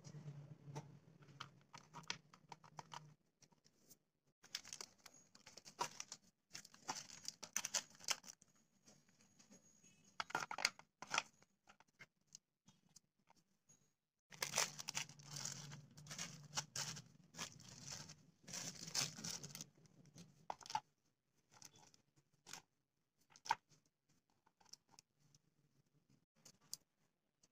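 Plastic and foil snack wrappers crinkling and rustling in stretches, with many small clicks and taps as packets and sweets are handled and set down on a plastic plate.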